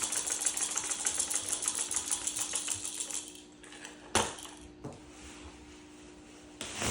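A hand-held rattle shaken rapidly for about three seconds, then it stops; a sharp knock follows about a second later, then a softer one.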